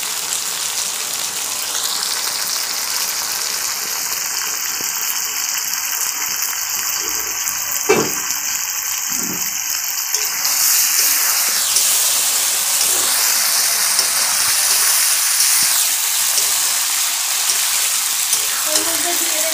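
Chicken pieces in spiced masala sizzling in hot oil in a steel kadai, stirred now and then with a spatula. There is a sharp knock about eight seconds in, and the sizzle grows louder about halfway through.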